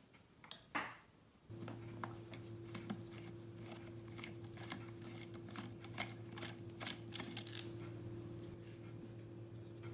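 Light, irregular clicks and taps of hands handling tools and small parts, over a steady low hum that starts about a second and a half in.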